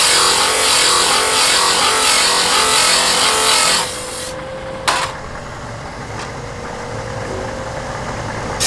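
Belt-driven grinding wheel grinding the edge of a steel sheet, a harsh grinding hiss for about four seconds. The sheet is then lifted off and the wheel runs on with a steady hum, with a single sharp knock about five seconds in.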